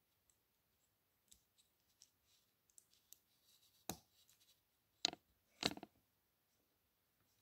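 Small plastic Lego bricks being handled and pressed together by hand: faint light ticks and rattles, then three sharper clicks in the second half as pieces snap into place.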